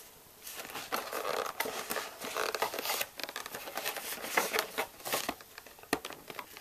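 Stiff plastic blister packaging of a graphing calculator crinkling and crackling with many sharp irregular clicks as a knife cuts and pries at its edge.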